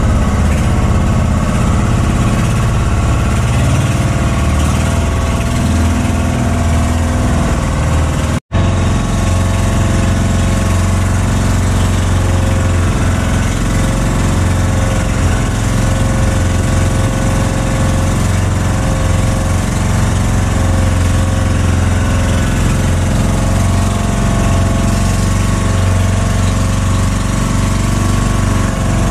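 Motorised outrigger fishing boat's engine running steadily under way, a constant low hum. The sound breaks off for an instant about eight and a half seconds in.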